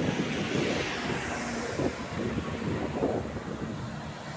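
A road vehicle passing close by, engine and tyre noise swelling and fading, with wind buffeting the microphone.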